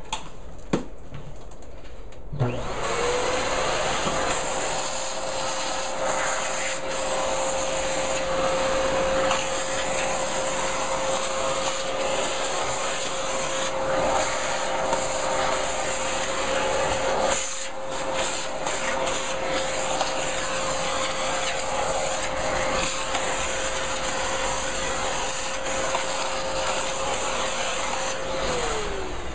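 Vacuum cleaner switched on about two seconds in, its motor whine rising quickly and then running steadily as the hose nozzle sucks drilling debris out of a sliding patio door's track. It is switched off near the end, the whine falling away.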